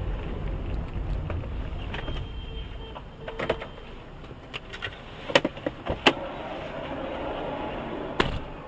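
Low rumble of the car's engine and road noise heard from inside the cabin, easing after about three seconds as the car comes to a stop. Then a scatter of sharp clicks and knocks inside the car, loudest a little past halfway, with one more near the end.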